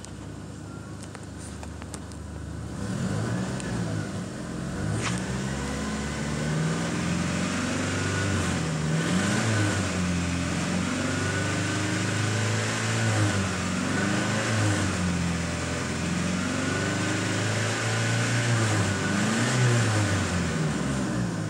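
A Great Wall V240's 2.4-litre petrol four-cylinder engine, heard from inside the cab. It idles, then about three seconds in it is revved up and held around 3,000 rpm, rising and falling in pitch several times, and near the end it drops back toward idle.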